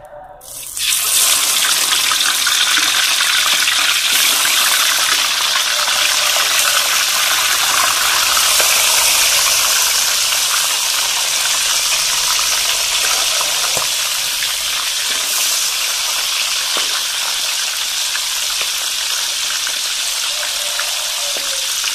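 Catfish pieces going into hot oil just under a second in, setting off a loud, steady sizzle of deep-frying that eases slightly toward the end.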